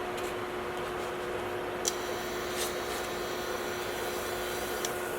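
Steady hum of a fan or small motor, with a few faint clicks.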